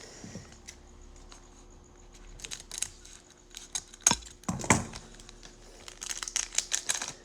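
A trading card pack's wrapper crinkling and tearing as it is opened by hand, in scattered crackles that grow dense near the end.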